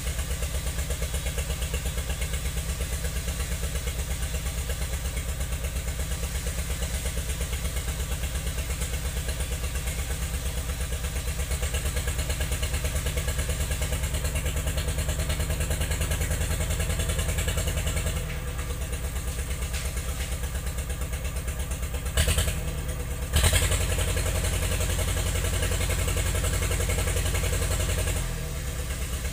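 Heavy logging machine's engine idling with a steady, even throb. About 22 and 23 seconds in come two sharp loud knocks, after which the engine runs louder for about five seconds before dropping back near the end.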